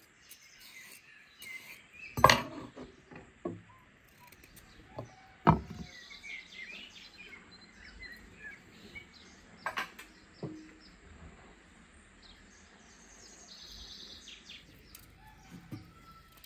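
Songbirds chirping on and off, with a few sharp knocks and clicks of kitchen work, the loudest about two and five and a half seconds in.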